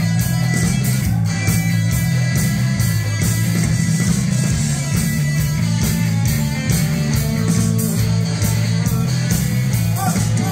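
Rock band playing live and loud: an instrumental passage of electric guitars, bass and drums with a steady beat, heard from within the audience in a club.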